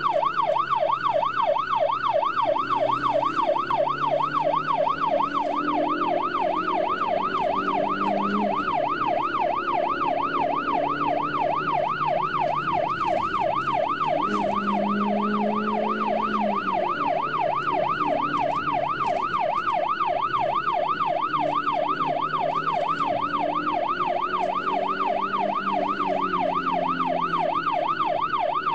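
Police siren in its fast yelp mode, its pitch sweeping up and down about three times a second without a break. A vehicle engine runs underneath, its pitch rising and falling.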